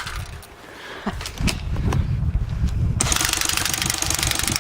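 An airsoft gun's handling clicks, then, about three seconds in, the gun opens up on full auto in a fast, steady stream of shots.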